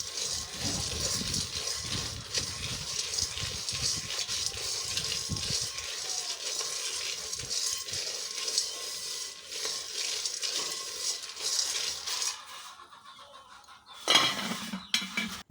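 Palm kernel nuts being stirred as they roast in a pot: steady scraping and rattling of the hard nuts against the pot, stirred often to keep them from burning. The stirring dies down near the end.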